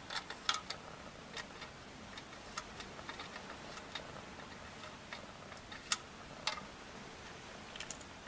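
Cat eating out of a clear plastic slow-feeding tray, working the food out of its small cups with mouth and paw: irregular sharp clicks and taps on the plastic. There is a cluster of clicks at the start, the two loudest about six seconds in, and a few more near the end.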